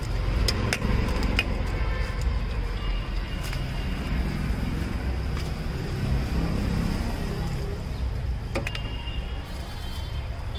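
Roadside street ambience: a steady low traffic rumble, with a few sharp clinks of a steel spoon against a steel serving bowl as chaat mixture is scooped out.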